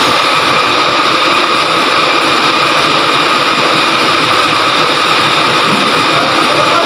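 Truck-mounted XCMG crane's engine running steadily at idle, with a steady whine over it.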